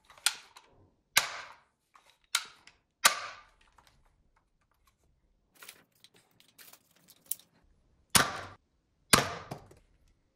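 Plastic dinosaur-head toy gun snapping sharply as it is worked, roughly one crack a second, then a few seconds of faint plastic clicking and rattling, then two more sharp snaps near the end.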